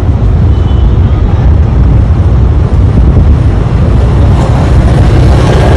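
Loud, steady low rumble of a diesel locomotive hauling a passenger train as it approaches along the track, with a faint tone joining near the end.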